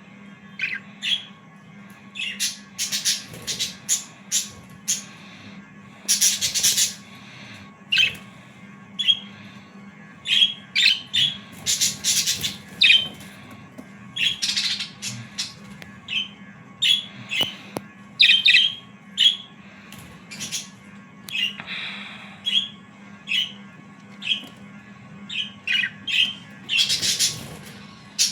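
Black-face Japanese Hagoromo budgerigars chirping and squawking, short sharp calls coming in quick clusters throughout, over a faint steady hum.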